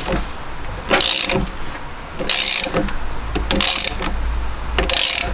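Socket ratchet clicking in four short bursts as it is swung back and forth, undoing engine mount bolts.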